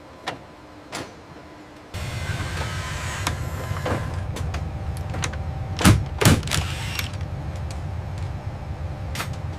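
A steady low electric motor hum of motorized positioning machinery starts about two seconds in, with two sharp clunks a fraction of a second apart about midway.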